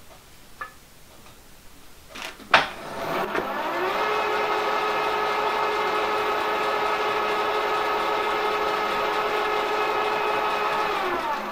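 Milling machine spindle motor switched on with a click about two and a half seconds in. Its whine rises to a steady pitch and holds, then winds down near the end, while the end mill slits a graphite-filled PTFE piston ring.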